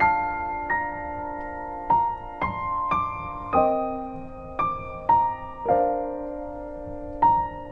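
Background music: a slow, gentle piano melody, single notes and chords struck every half-second to second and a half and left to ring, with no singing.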